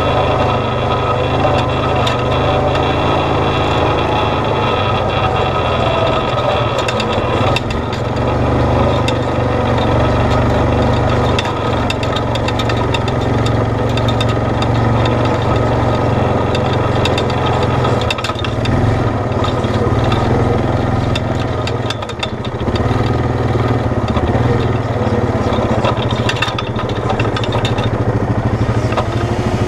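Off-road vehicle's engine running steadily at low trail speed over a rocky dirt track, with scattered clicks and knocks throughout. The engine note eases briefly twice, about a third of the way in and again past two-thirds.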